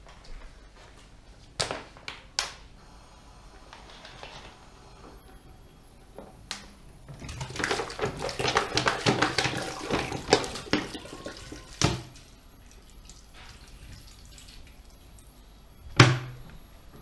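Water poured from a plastic bottle into a large pot of diced potatoes: a splashing gush lasting about four seconds in the middle. Two sharp plastic clicks come about two seconds in, and a loud sharp knock near the end.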